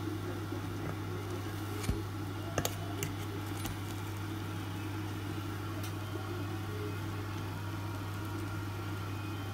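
Steady low hum with a few light clicks of a metal fork against the nonstick cupcake plate as a baked cupcake is prised out, about two to three seconds in.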